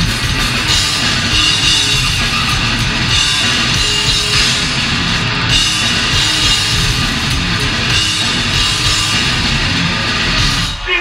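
Grindcore band playing live at full volume: distorted guitar and bass over fast drums, with a brief drop in the sound just before the end.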